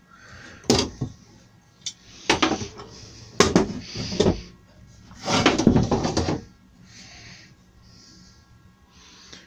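Workbench handling: clamps being released and tulipwood (yellow poplar) workpieces picked up and set down, a series of sharp knocks and clunks with a longer clatter about five to six seconds in, quieter toward the end.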